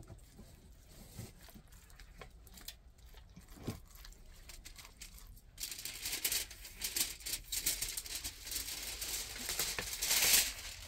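Hands smearing and rubbing a wet spice paste into a raw leg of meat, the meat shifting against a metal bowl: light handling clicks at first, then from about halfway in a dense, crackly wet rustling that is loudest near the end.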